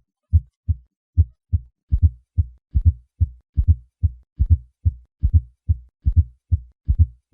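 Recorded human heart sounds at about 72 beats a minute. The first two cycles are plain lub-dub pairs. From about two seconds in, each first sound is doubled by a short extra beat just before it: a fourth heart sound (S4 gallop), the sign of a stiff, hypertrophied ventricle from pressure overload or hypertension.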